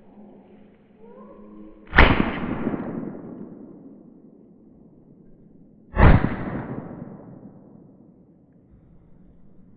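Two shotgun blasts about four seconds apart, each a sharp report followed by a long rolling echo, fired at a rabbit running ahead of beagles. Faint hound baying comes just before the first shot.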